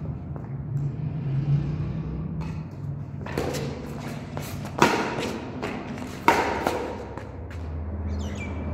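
Badminton rackets hitting a shuttlecock back and forth in a rally: a series of sharp hits, the two loudest about a second and a half apart midway through, with lighter hits around them.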